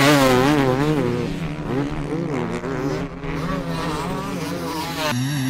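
Motocross bike engine ridden hard round a dirt track, its note rising and falling quickly over and over as the throttle is worked. Just before the end it cuts to a different engine sound.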